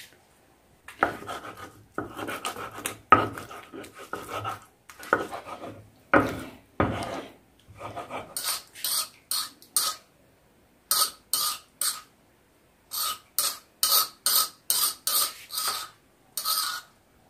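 Stone roller rubbed back and forth on a flat stone grinding slab, grinding roasted tomatoes into chutney with wet, rasping stone-on-stone strokes. The strokes start irregular, then turn after several seconds into quick runs of about two to three a second, broken by short pauses.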